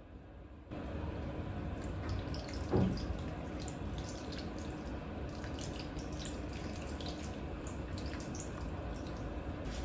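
Marinade pouring in a steady stream from a glass measuring cup onto diced raw chicken in a steel bowl, with a metal spoon clinking and scraping against the cup. There is one louder knock about three seconds in.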